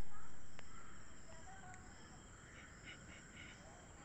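Outdoor ambience: a low rumble, loudest at the start and fading over the first second or so, under a steady high-pitched drone like insects, with a small bird chirping four times quickly just past the middle.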